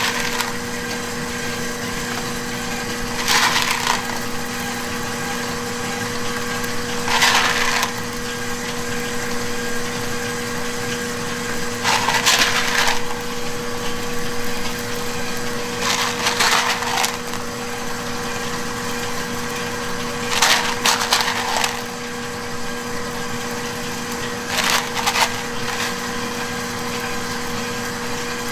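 Chocolate chips rattling as they are scooped by hand from a plastic tub and scattered over cake batter: six short bursts about four seconds apart, over a steady machine hum.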